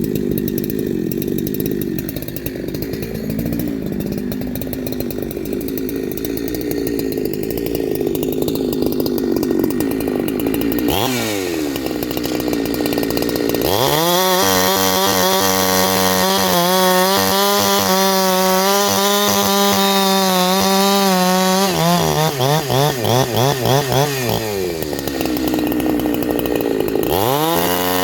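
Ported big-bore two-stroke chainsaw with a shotgun muffler, running loud. For the first ten seconds or so it works at a lower pitch under load in a cut. It then revs up and holds a steady high-pitched scream at full throttle, stutters on and off for a couple of seconds, drops back, and revs up again near the end.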